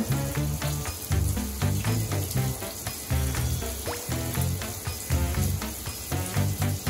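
Background music with a bouncy bass line of short stepping notes and a steady beat, over the even hiss of a running shower spray.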